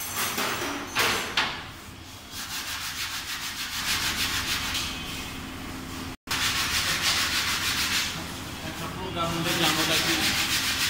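Hand sanding: a small part rubbed back and forth on a sheet of sandpaper, in quick even strokes of about three or four a second.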